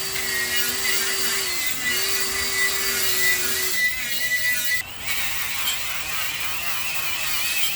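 Handheld power tool running with a steady whine that dips briefly and picks up again, stripping loose rust from a Chevy 10-bolt rear axle; about five seconds in the sound cuts to a wavering, higher-pitched whine.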